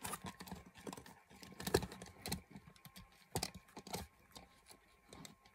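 Irregular light clicks and taps from handling small die-cast model cars, their doors being moved down and up.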